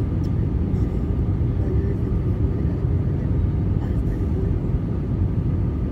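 Airbus A320 cabin noise heard from a window seat over the wing: a steady low rumble of the jet engines and airflow in flight, with faint steady tones above it.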